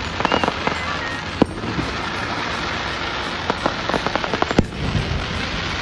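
Fireworks display: aerial shells bursting, with a sharp bang about a second and a half in and another near the end. Quick runs of crackling pops come shortly after the start and again a few seconds later.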